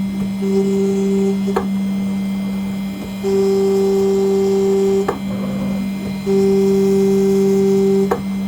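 CNC engraving machine milling an aluminium nameplate. A steady low hum runs under a higher motor whine that comes and goes in spells of one to two seconds as the axes move, with a short click at each stop and start.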